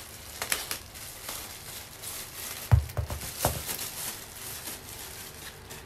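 Clear plastic packaging crinkling and rustling as a foam roller pad is handled and unwrapped, with a few dull knocks close together about three seconds in.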